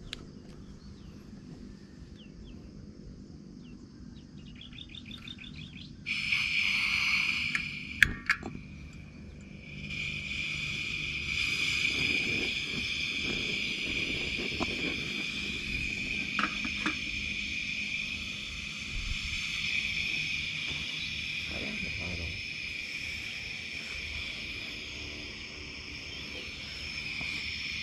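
Portable gas camping stove being lit to heat water: a short run of clicks, then the burner comes on with a hiss about six seconds in, drops out with a couple of sharp clicks, and from about ten seconds in hisses steadily.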